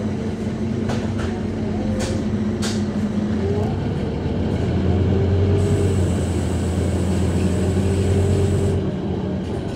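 A Scania DC9-16-230 five-cylinder diesel engine running in a Scania K230UB bus, with its ZF 6HP504C automatic gearbox, heard from on board. The engine note grows louder and deeper from about four seconds in, with a thin high whine over it, then eases off near the end. A few sharp rattles or knocks sound in the first three seconds.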